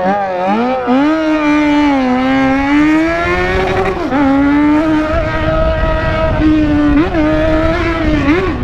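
Yamaha XJ6's 600 cc inline-four running very loud through a bare exhaust pipe with no muffler, as the bike rides off. The engine note climbs, drops at a gear change about four seconds in, then holds steady with two short throttle blips near the end.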